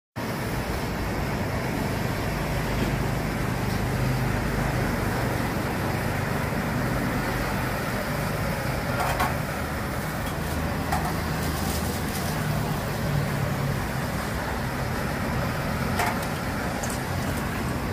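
Steady low rumble of street background noise, with a few light metal clinks of a ladle against small soup pots.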